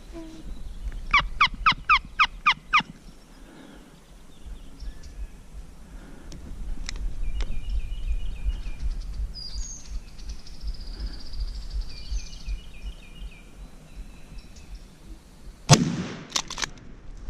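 A run of about seven loud yelping notes, each falling in pitch, comes about a second in, with small birds chirping. Near the end a single loud shotgun blast goes off, echoing through the woods: the shot that kills the gobbler.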